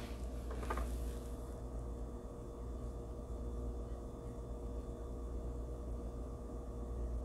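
Quiet room tone: a steady low electrical-sounding hum with a faint steady tone above it, and a brief faint rustle about a second in.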